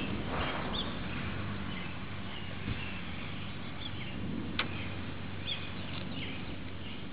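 The tail of a thunder rumble dies away in the first moment. Then birds chirp faintly and sporadically over a steady outdoor hiss, with one short, sharp sound about four and a half seconds in.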